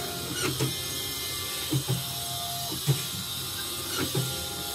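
Light mechanical clicks and knocks from a CNY portable embroidery machine and its hoop frame, in about four pairs roughly a second apart, over a steady hum.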